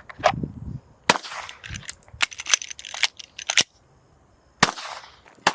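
A 9mm Glock 19 pistol being fired, about eight sharp shots at uneven spacing, with a pause of about a second before the last two.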